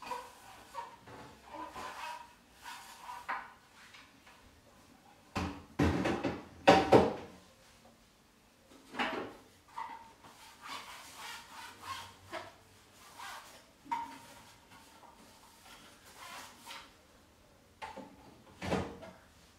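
Household items being handled and set down, with scattered knocks, clicks and rubbing and a louder clatter of knocks about six seconds in.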